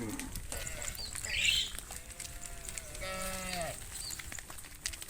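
A cow lowing: one long moo from about two seconds in, bending down in pitch as it ends. It follows a short high-pitched call about a second and a half in.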